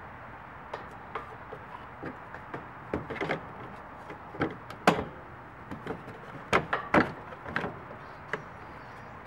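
Irregular clacks and knocks of a plastic under-engine splash panel being handled and pushed into place under the vehicle. The loudest knocks come about five and seven seconds in.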